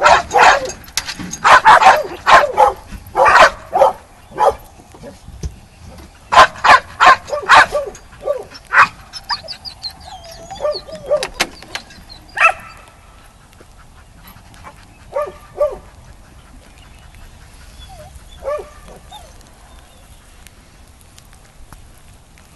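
Dog barking in rapid, excited bursts while playing. After about eight seconds the barking thins out to a few fainter barks.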